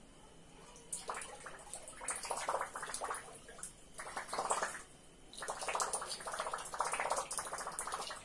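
Water splashing and sloshing in a small tiled tank, in several uneven bursts of about a second each.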